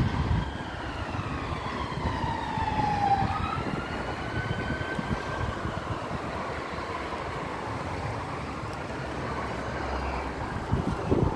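A distant emergency-vehicle siren wailing, its pitch sliding slowly down and back up and fading out past the middle, over a steady rumble of traffic.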